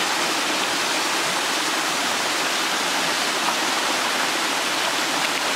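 Small waterfall splashing steadily into a rocky pool: an even, unbroken rush of falling water.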